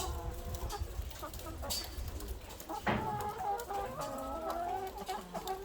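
A flock of laying hens clucking and calling over one another, with a sharp knock about three seconds in.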